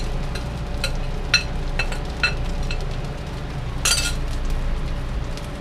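A glass bowl clinking against a steel wok as cooked rice is tipped and scraped out of it: a series of light clinks about every half second, with a louder scrape about four seconds in. A steady low hum from the range hood fan runs underneath.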